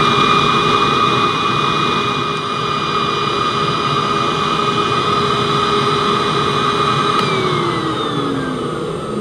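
Miele S228i cylinder vacuum cleaner's motor running with its hose sealed on a suction gauge, a steady whine over a rush of air, pulling about 92 inches of water of sealed suction. About seven seconds in, the whine slides down in pitch as the motor winds down.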